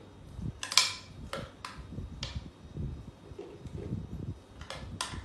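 A spoon knocking and scraping inside a blender jar as ground biscuit and walnut crumbs are spooned out into a cake pan: a series of sharp clicks and knocks, the loudest about a second in.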